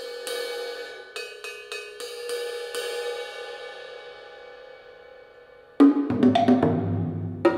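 Chinese percussion music: a few sharp cymbal strokes whose bright ringing slowly dies away over several seconds. About three-quarters of the way in, a loud, fast flurry of drum and wood block hits breaks in.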